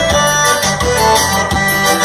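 Live band music in an instrumental passage with no singing: a sustained melody line, accordion-like or keyboard, over bass and a steady drum beat.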